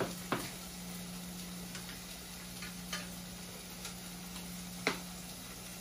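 Bacon starting to fry in lard and a little oil, with a few scattered pops and ticks of spitting fat, the sharpest about five seconds in, over a steady low hum.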